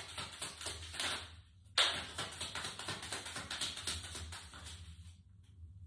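Tarot deck being shuffled by hand, cards flicking against each other in a fast run of light clicks. It breaks off about a second and a half in, starts again with a sharp snap just under two seconds in, and stops a little after five seconds.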